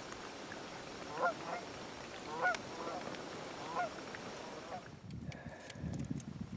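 Geese honking: short, separate calls spaced a second or so apart over a quiet background. The calls stop about five seconds in, giving way to low rustling.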